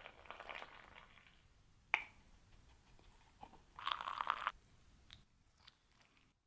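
Yerba mate being prepared: short dry rustling and crunching sounds, with a sharp click about two seconds in and a second crunchy rustle around four seconds in.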